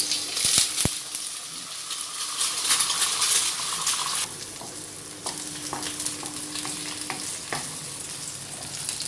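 Two eggs hitting hot sunflower oil in a non-stick pan and frying, a loud sizzle for the first few seconds that settles to a steadier, quieter sizzle with a few light ticks.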